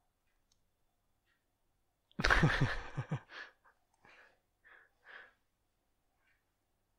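A person's voice: a loud breathy exhale with falling pitch about two seconds in, like a sigh, then a few soft breathy puffs.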